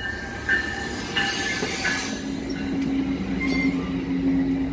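EXO bilevel commuter train rolling into the station as it slows to stop. Its wheels squeal several times in short, high-pitched squeals during the first two seconds over a steady rumble. From about two seconds in, a steady low hum sets in as the coaches pass.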